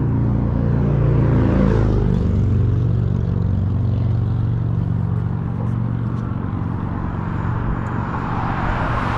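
Motor vehicle engines running close by. One engine's pitch drops about two seconds in as it goes past, and near the end the rushing noise of another passing vehicle swells.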